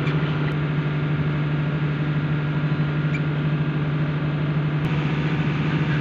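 Steady low hum of a running machine, with a faint short chirp about three seconds in.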